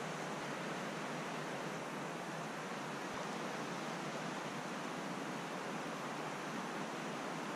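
A steady, even hiss with no distinct events, no gunshot and no voices.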